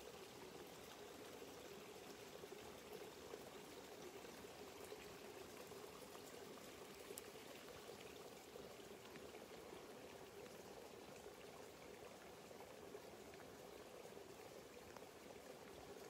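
Faint, steady trickle of water from a small stream channel.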